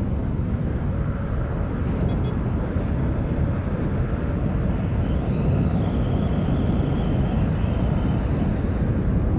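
Steady wind rush on the microphone mixed with the Yamaha NMAX 155's 155 cc single-cylinder four-stroke engine, running hard at about 106 km/h on a top-speed run.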